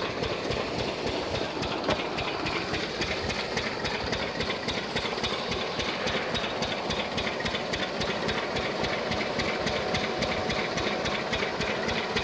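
Diesel engine driving an irrigation water pump, running steadily with a fast, even knocking beat.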